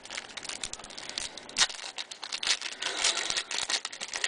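Trading cards being handled and flipped through, with a quick, irregular run of small clicks, rustles and crinkles.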